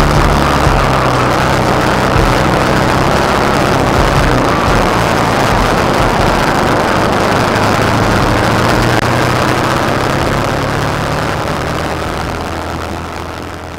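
Twin-engine kart's engines running steadily at speed, heard from onboard. The sound fades away near the end.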